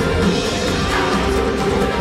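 Upbeat pop music from a live band with a drum kit, playing at a steady, loud level with a regular beat.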